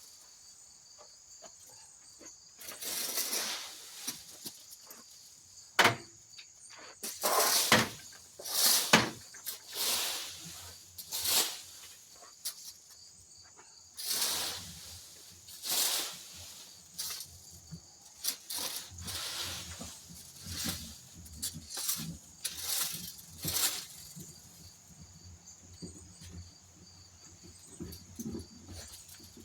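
Rake dragged through dry leaves in a dozen or more irregular scraping swishes, one every second or two. A steady high-pitched hum runs underneath.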